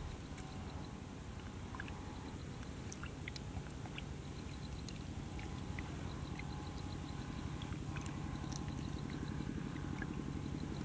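A low, steady engine rumble, slowly growing louder, with faint scattered clicks.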